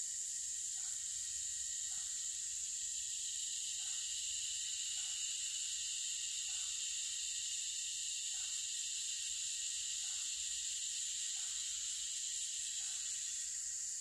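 Steady high-pitched chorus of insects at dusk, with a soft short call repeating about every one and a half seconds underneath.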